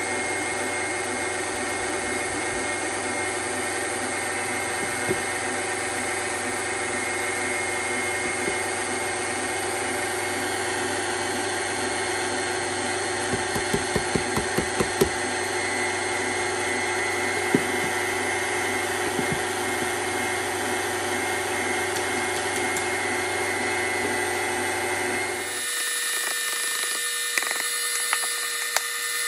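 KitchenAid stand mixer motor running steadily, beating cake batter as flour is added, with a short run of sharp clicks about halfway through. Near the end the motor's sound changes abruptly, its low hum dropping out.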